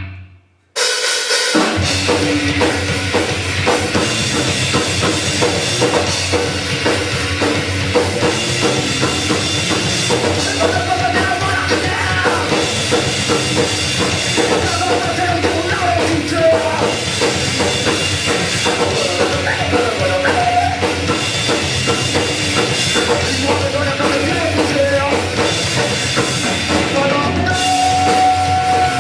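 Rock band playing a song live, loud, with a pounding drum kit; the full band comes in at once about a second in after a brief silence, and a melodic line rides above it from about ten seconds on.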